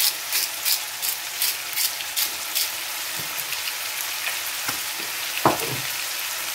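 Ground meat sizzling as it fries in a frying pan. For the first two and a half seconds a spice shaker of garlic granules is shaken over it in quick even strokes, about three a second. A single knock comes about five and a half seconds in.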